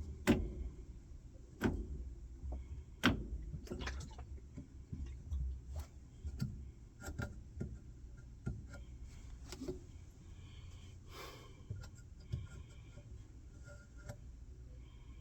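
Irregular clicks and knocks of work on a washing machine's drive parts, busier in the first ten seconds, with a short scraping rub about eleven seconds in.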